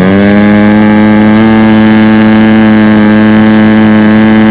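Small dirt bike engine running at high, steady revs, very loud.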